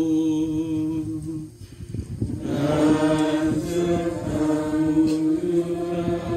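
Liturgical chant at a Catholic Mass, sung on long, nearly level notes. There is a brief break about two seconds in, after which the singing comes back fuller.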